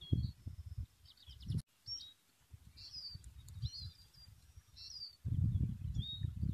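Small songbirds chirping, with short high calls here and there, over a low irregular rumble that grows louder about five seconds in.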